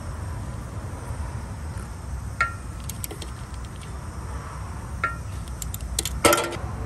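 A socket ratchet on a long extension working the upper starter bolt loose, giving scattered sharp metallic clicks and clinks, with a denser cluster near the end. A steady low rumble runs underneath.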